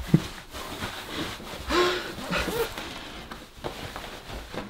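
A man laughing breathily in short bursts, with cloth rustling as he bends over in layers of tracksuit trousers; a short knock just after the start.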